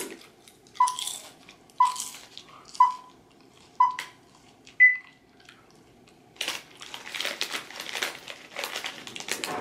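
Film-leader countdown beeps: four short beeps a second apart, then a final higher-pitched beep. After a short pause comes a soft, irregular crackling noise.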